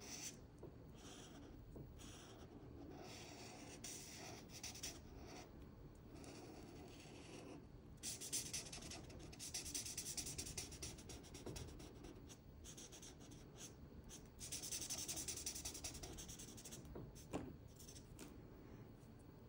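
Felt-tip marker strokes on paper: a soft, scratchy rubbing repeated as the marker fills a dark area with gray. The strokes come in faster, louder runs about eight to ten seconds in and again around fifteen seconds in.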